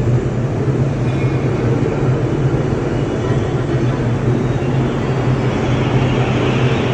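Ladle refining furnace in operation: a loud, steady industrial noise with a strong low hum running under a rough, crackly texture.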